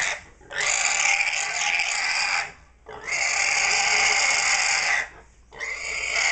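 A pig screaming in distress as it is held down for slaughter: long, loud, shrill squeals of about two seconds each, broken by short pauses for breath, one ending just as another begins and two more following.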